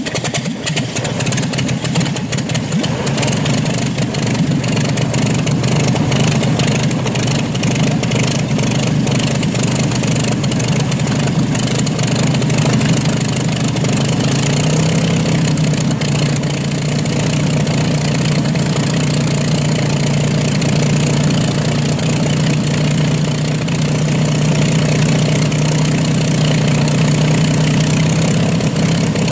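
Bell P-63 Kingcobra's Allison V-1710 V12 engine idling just after a cold start, firing raggedly for the first few seconds and then settling into a steady idle. The engine speed steps up slightly about halfway through.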